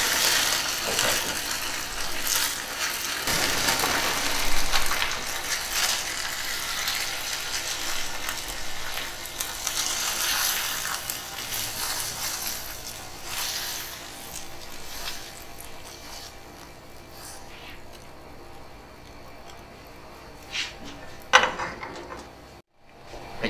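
A spatula scraping and tapping against a nonstick frying pan as egg whites and chicken are stir-fried and then scraped out onto a plate, with a light sizzle. It goes quieter after about 14 seconds, and near the end come a couple of sharp clacks as the pan and spatula are set down.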